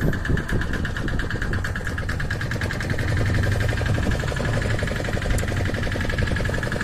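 Small fishing boat's engine running steadily at low speed: a fast, even beat under a steady high-pitched drone.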